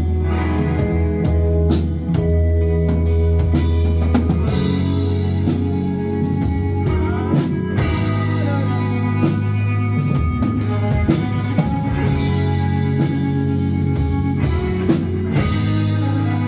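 Live rock band playing, with a drum kit keeping a steady beat and guitar over a heavy low end.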